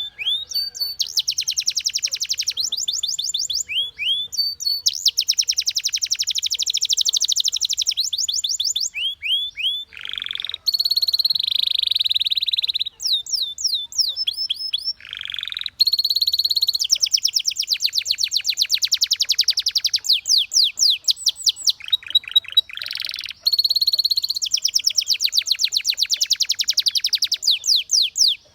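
Canary singing: long, rapid trills of repeated high notes, broken by short rising whistles and a few held buzzy notes between phrases.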